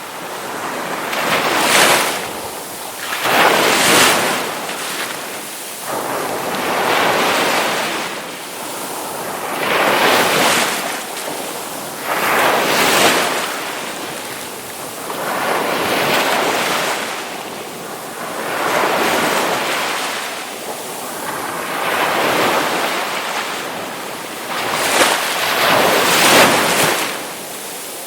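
Ocean waves breaking on the shore, one after another, the surf swelling and ebbing about every two to three seconds.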